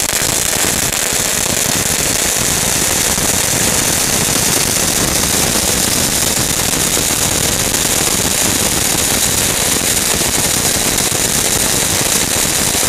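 A 'Power Point' fountain firework lying on the ground, spraying a jet of sparks with a steady hiss and dense, rapid crackling, unbroken and even in loudness.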